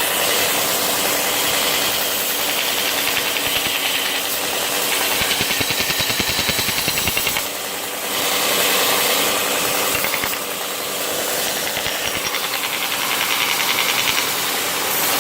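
Homemade 2x72 belt grinder running, its half-horsepower electric motor spinning the belt over an 8-inch drive wheel: a steady hum and whir with a fast, even flutter. The belt is tracking well, with nothing rubbing.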